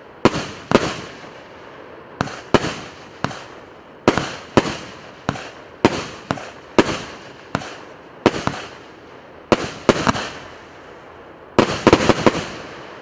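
Multi-shot fireworks battery (cake) firing its shots one after another, each a sharp bang with a fading tail, often about two a second. A quick cluster of shots comes near the end, and then the firing stops.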